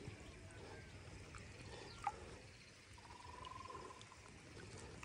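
Faint water trickling and dripping, with one sharp click about two seconds in and a short, even trill about three seconds in.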